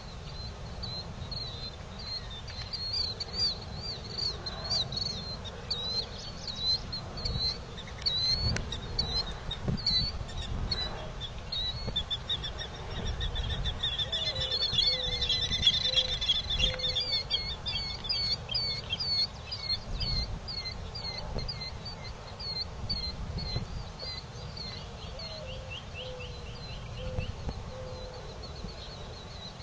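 Several birds calling in a morning chorus: quick high chirps repeated over and over, a dense trill in the middle, and a few lower, slower calls, over a steady low rumble of outdoor noise.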